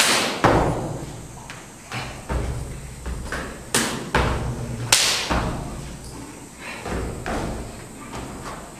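Stamps and strikes of a Mantis Fist kung fu form: about a dozen sharp thuds and cracks at irregular intervals, each echoing in a bare hall with a wooden floor.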